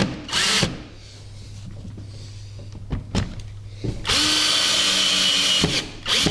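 Power drill driving stainless steel screws up through the seat frame into a seat cushion: a short run about half a second in, a longer steady run of about a second and a half from about four seconds in, and a brief run near the end.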